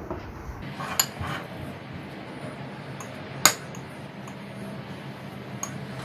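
Metal knife clinking and scraping against glass bowls while scooping and spreading strained yogurt: a few light clinks, with one sharper, louder clink about three and a half seconds in.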